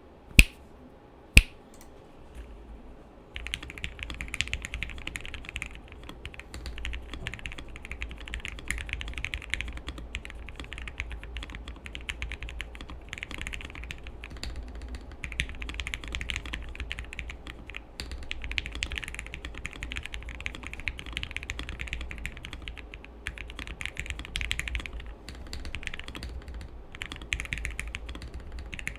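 Two sharp clicks in the first second and a half, then fast continuous typing from about three seconds in on an MW65 acrylic-stack, gasket-mount mechanical keyboard with lubed Gateron Yellow linear switches on a polycarbonate plate and dye-sub keycaps: a soft, even clatter of keystrokes with a few short pauses.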